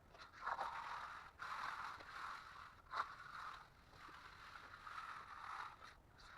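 Hand tool scraping across wet concrete in repeated swishing strokes, about one a second, as the surface is worked back and forth.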